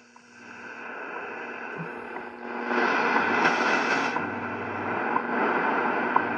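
Shortwave static from a Zenith Royal 1000 Trans-Oceanic transistor portable radio tuned to a time-signal station, with a short tick about once a second through the hiss. The hiss grows louder about three seconds in.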